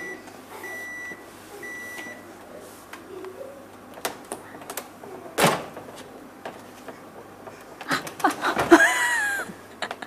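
Refrigerator door-open alarm beeping three times in the first two seconds, each a steady high tone. Clicks and a knock follow about five seconds in, and a loud, high, wavering squeal near the end.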